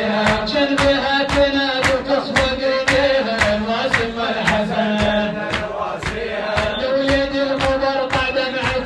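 Shia latmiya: a male reciter's sung mourning lament, with a group of men chanting along, over a steady rhythm of hands beating on chests, about three strokes a second.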